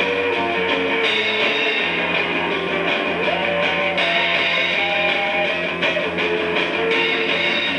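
Russian garage punk rock: strummed electric guitar over a steady bass, with held melody notes on top, played back through a large horn loudspeaker in a room.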